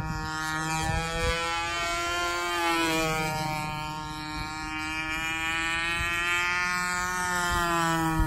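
Radio-controlled model airplane's motor and propeller giving a steady high-pitched buzz as the plane flies past. The pitch falls as it passes about three seconds in, climbs again as it comes back, and falls once more near the end.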